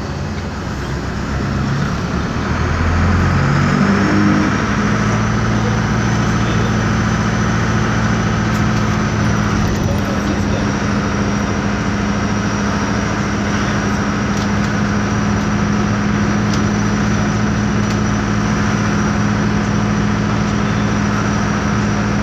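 Otokar M-2000 bus's noisy air-cooled Deutz diesel engine heard from inside the cabin, revving up over the first few seconds as the bus accelerates, then holding a steady drone. A thin high whine runs over the engine until near the end.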